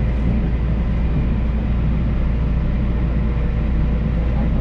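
Electric local train running steadily, heard from aboard: a constant low rumble of wheels on rail with a faint steady motor whine.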